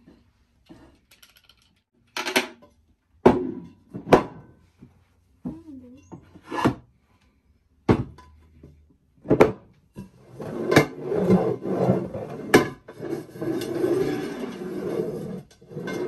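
Large ceramic bowls being set down and knocked upside down on a tabletop: a string of sharp knocks, then scraping and rubbing for the last few seconds as the bowls are slid around on the table to hide what is under them.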